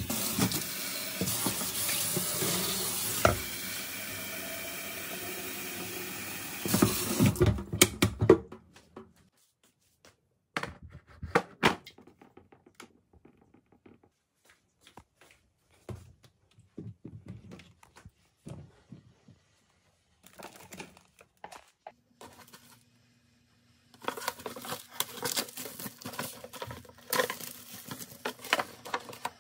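Kitchen tap running water into a stainless-steel electric kettle in the sink for about seven seconds, ending in a few knocks. Then scattered light clicks and knocks, and near the end crinkling of plastic wrap being pulled off a cup of instant noodles.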